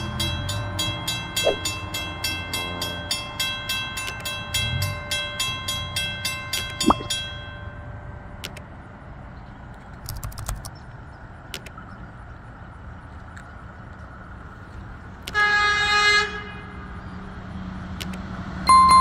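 Railroad crossing bell ringing rapidly for about seven seconds, then stopping. Later an approaching Baltimore light rail train sounds its horn: one blast of about a second, then a short toot near the end, both louder than the bell.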